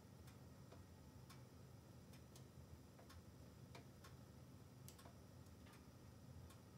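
Logs burning in a closed wood-burning stove: faint, irregular crackles and small pops, about one or two a second, over a low, steady rumble.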